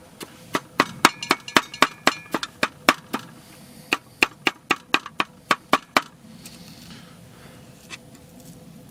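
Kitchen knife chopping onion on a small cutting board: a run of sharp, even taps, about three a second, stopping about six seconds in.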